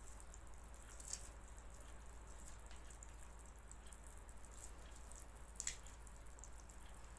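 Faint wet squelching of a hand kneading flour into soft, sticky poğaça dough, with a couple of sharper sticky smacks, one about a second in and another later on.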